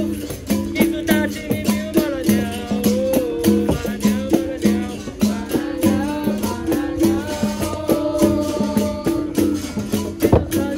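Capoeira roda music: berimbaus play a repeating two-note rhythm with a shaken rattle and hand percussion, while voices sing over it.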